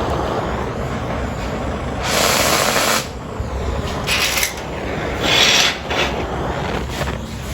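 Oxy-fuel cutting torch running with a steady hiss while cutting 1/4 inch steel plate, broken by three louder bursts of hiss: one about a second long about two seconds in, then two shorter ones about four and five and a half seconds in.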